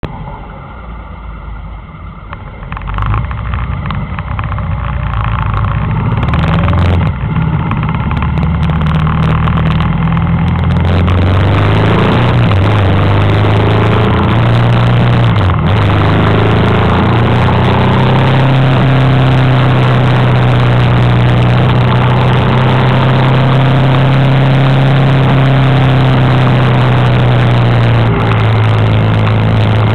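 Honda Africa Twin V-twin motorcycle engine pulling away and accelerating through the gears, its pitch stepping up and down and the sound growing louder over the first ten seconds or so. It then runs at a steady cruising note, with a dip about halfway, under steady wind and road rush.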